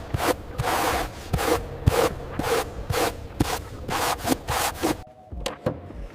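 Rhythmic scraping or rubbing strokes, about two to three a second, stopping about five seconds in, after which only a few faint clicks remain.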